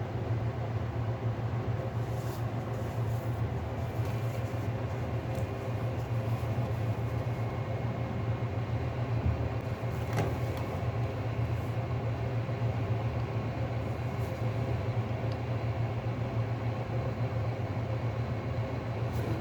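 A steady low mechanical hum, with a few faint clicks about two and ten seconds in.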